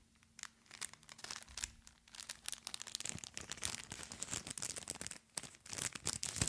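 Close-up crinkling and rustling of crinkly wrapping being handled, a scatter of small crackles that grows much denser about halfway through.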